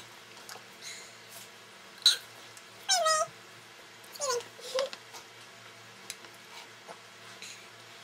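A few short high-pitched squeaks sliding downward, one of them with a fast wobble, made with plastic water bottles held to the mouth. There is a sharp click about two seconds in.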